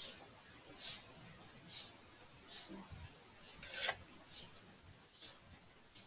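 Stylus scratching on a writing tablet in short handwriting strokes, about one a second, with a longer stroke a little after the middle.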